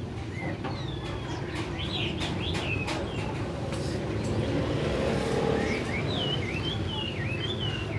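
A songbird whistling short, wavy chirping phrases in two spells, over the steady low hum of street traffic.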